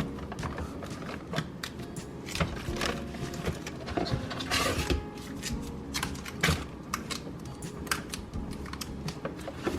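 Irregular clicks, taps and light knocks of groceries and containers being handled and set down, with a short crinkle of packaging about halfway through.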